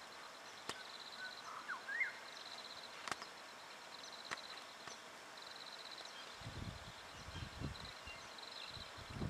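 Faint outdoor ambience: a short, high, rapid trill repeating about every second and a half, a few sharp ticks, and a few brief chirps about two seconds in. Low rumble on the microphone comes in during the second half.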